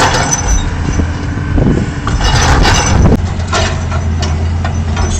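Heavy diesel engine of a large truck or earth-moving machine running steadily, with scattered metallic knocks and clatter over it.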